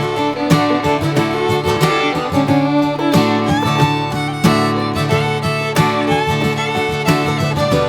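Outro music: bluegrass-style tune with fiddle and plucked guitar.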